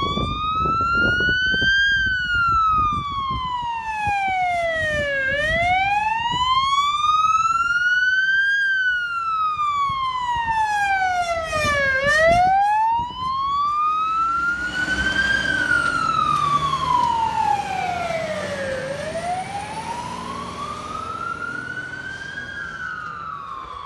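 Fire truck siren on a slow wail, its pitch rising and falling about every seven seconds, over the rumble of the truck's engine and tyres as it passes close about twelve seconds in. The siren grows fainter near the end as the truck drives away.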